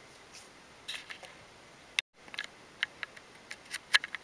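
A run of small, irregular clicks and taps from objects being handled, the sharpest near the end, broken by a moment of dead silence about two seconds in.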